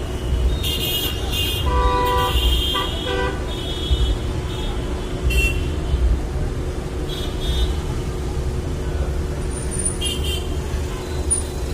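Road traffic with vehicle horns honking several times, mostly in the first few seconds and again briefly later, over a steady low rumble.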